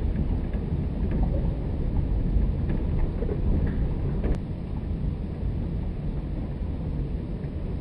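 Thunderstorm ambience with rain: a steady low rumble with scattered light ticks, and a sharp click about four seconds in.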